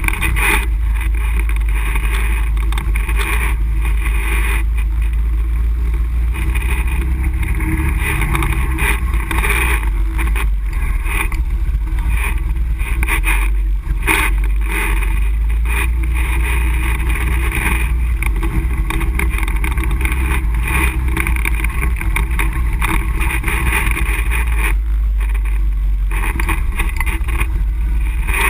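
ATV engine running steadily at trail-riding pace, heard from a camera mounted on the quad, with the side-by-side ahead adding its own engine sound.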